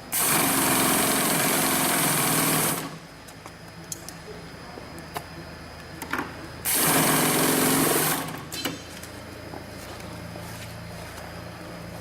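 80700C1H bulk bag (FIBC) industrial sewing machine stitching in two runs, the first about two and a half seconds long, the second about a second and a half long near the middle. A quieter steady motor hum continues between and after the runs.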